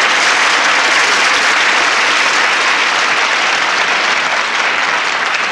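Sitcom studio audience applauding steadily as a character makes her entrance, easing off slightly near the end.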